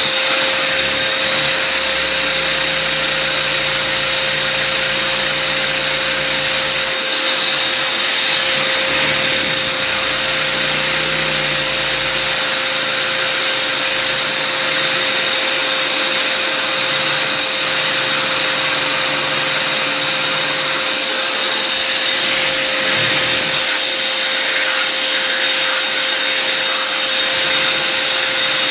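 Steady whir of a small electric motor running continuously, with a constant high hum.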